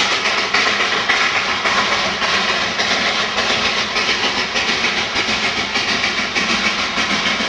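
Darjeeling Himalayan Railway B Class 0-4-0 saddle-tank steam locomotive working hard with its train, its exhaust beats coming in a quick, even rhythm over a steady hiss.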